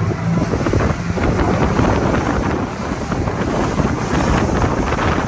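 Loud wind buffeting the microphone as the open ocean raft speeds across the water, with the boat's motor faintly underneath.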